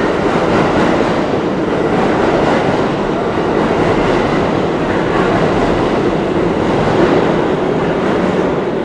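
New York City subway train running on nearby tracks: a loud, steady rumble and rattle of rolling stock.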